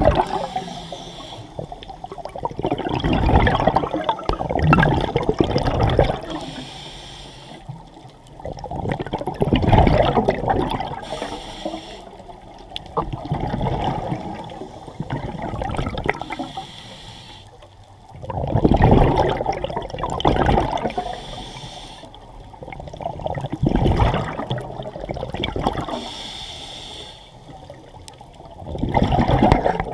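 Scuba diver breathing underwater through a regulator: a short hissing inhale, then a long gurgling rush of exhaust bubbles, repeating about every five seconds.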